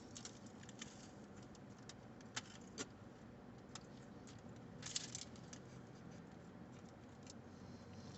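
Faint eating and handling sounds: scattered small clicks, with a brief rustle about five seconds in.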